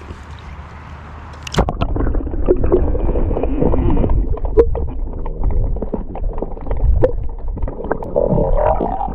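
River water heard from below the surface: about a second and a half in, a splash as the microphone goes under, then a dull, muffled rumbling and gurgling of the current with scattered small clicks and knocks from handling the fish.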